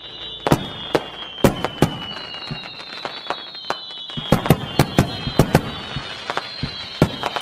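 Fireworks going off at the turn of the year: irregular sharp bangs, coming thicker in the second half. A steady high whistle, slowly falling in pitch, runs under them.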